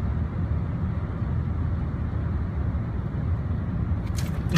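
Steady cab noise of a Ford pickup truck driving at highway speed: a continuous low rumble of road and engine. A few brief clicks come near the end.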